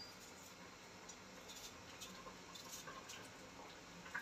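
Faint, brief scrapes of a kitchen knife paring the skin off a raw potato, a few strokes spread through the moment.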